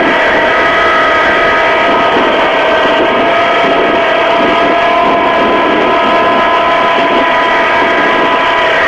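SAME 360C tractor running steadily under load, driving a rear flail mower through tall grass. A steady whine sits over the engine noise.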